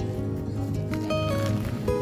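Music with held melodic notes over a steady low hum.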